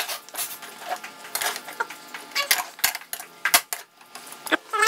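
Aluminium cooking pot clattering with sharp, irregular clinks and knocks as raw chicken pieces are mixed in it.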